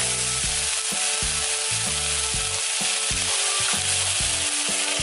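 Green vegetable stalks sizzling in a hot wok while a spatula stirs and tosses them, with repeated scrapes and knocks of the spatula against the wok over a steady hiss of frying.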